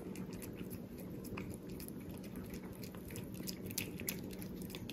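Cat licking churu paste from a squeeze tube, making faint, irregular wet clicking and smacking sounds with its tongue and mouth.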